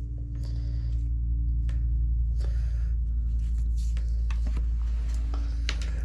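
Rustling and light clicks of sticker sheets and packaging being handled, over a steady low hum.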